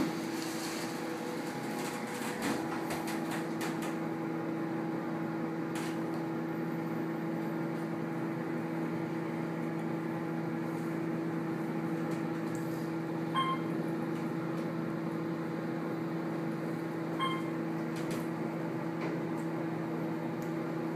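Otis elevator cab running during a ride up, a steady electric hum filling the car, with a soft thump a couple of seconds in. Two short electronic beeps about four seconds apart sound in the second half.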